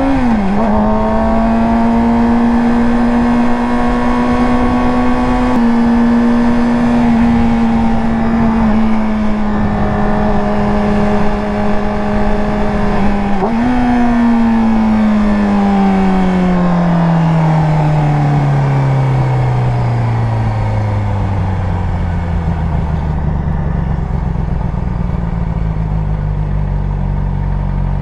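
Yamaha YZF-R6 inline-four engine under way at steady revs, with a quick gear change just after the start. About halfway the revs jump briefly, then fall steadily for several seconds as the bike slows, settling at a lower steady pitch.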